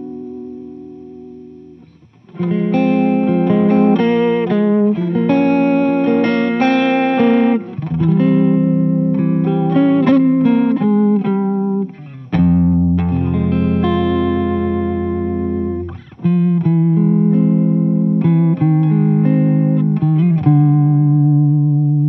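Electric guitar played through a DIY Phaser 45 phaser pedal. A chord dies away over the first two seconds, then strummed chords and single-note phrases follow with short breaks, including a deep chord held from about twelve to sixteen seconds in, before the last chord rings out.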